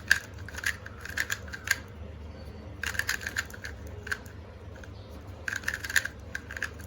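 YJ MGC Elite 2x2 magnetic speed cube being turned quickly by hand: quick soft plastic clicks as the layers snap into place. They come in three bursts of turns with short pauses between them.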